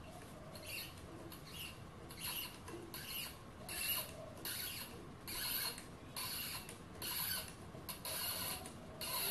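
Hand tap cutting a 3 mm thread in a small brass part, turned in short twists: a repeated squeaky scraping about once every 0.8 seconds.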